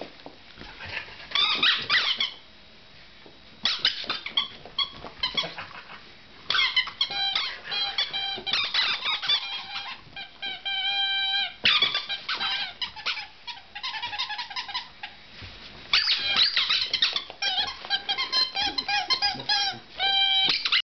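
Rubber squeaky toy squeaking in repeated bursts as pets squeeze and chew it, some squeaks short and rapid, a few drawn out.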